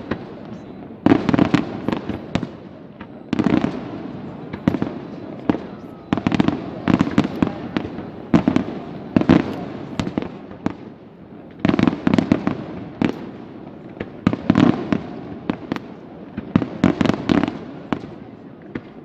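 Aerial fireworks display: shells bursting in clusters of sharp bangs and crackles, each group followed by an echoing rumble, a new volley every one to three seconds.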